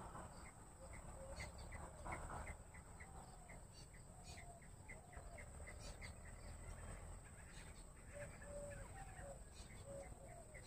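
Bush quail calling: a faint, steady series of short high notes, about two a second, with short lower whistled notes that slide down, repeating alongside.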